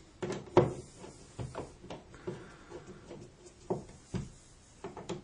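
Irregular light clicks and knocks of plastic and metal as wall switches and a timer switch are nudged into line in a four-gang electrical box so the cover plate will fit.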